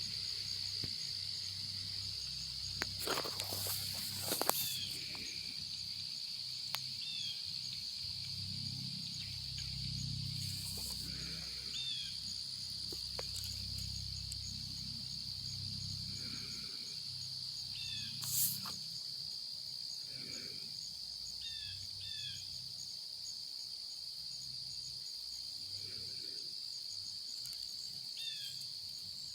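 Steady high-pitched chorus of crickets or other singing insects, with short falling chirps every few seconds. A few brief rustles sound about three to four seconds in and again around eighteen seconds.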